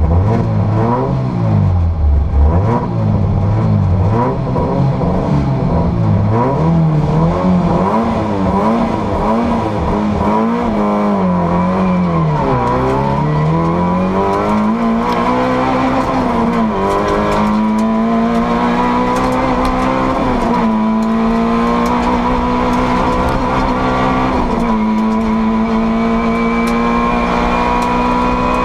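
Rally car engine at full stage pace, heard inside the roll-caged cabin. In the first half the revs swing up and down about once a second; from about halfway it pulls through the gears in long rising runs, with a sharp drop at each upshift every three to four seconds.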